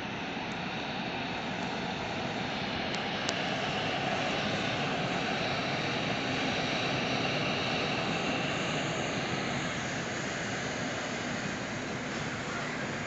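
Electric freight locomotive with car-carrier wagons rolling past on the track, a steady rushing rumble that swells a little around the middle as the locomotive goes by.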